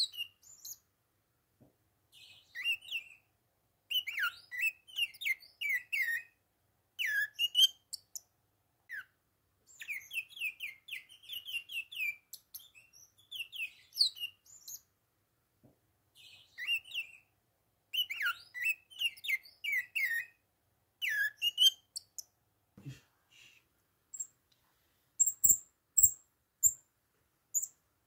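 Bourke's parakeets twittering and chirping in quick phrases of a second or two, separated by short pauses. Near the end the twittering stops and gives way to a few soft knocks and a run of very high, thin, evenly spaced chirps.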